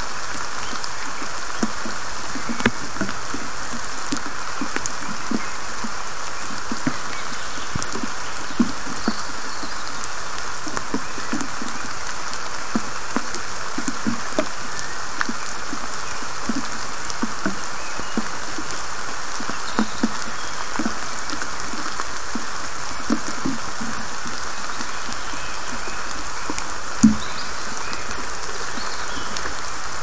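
Steady summer rain falling in a forest, with irregular low plops of drops landing close by and one louder plop near the end.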